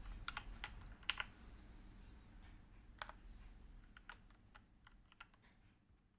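Typing on a Keychron K4 mechanical keyboard with Gateron Red linear switches: irregular keystroke clicks, a quick cluster in the first second, then sparser strokes that grow fainter.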